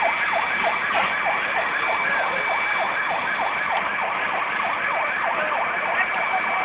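Emergency vehicle siren sounding continuously in rapid sweeps up and down, several a second, with a steady high tone alongside.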